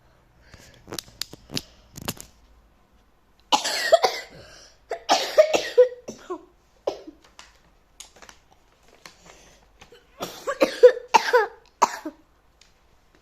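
A person coughing in three bouts, each several coughs long. A few sharp clicks come before the first bout.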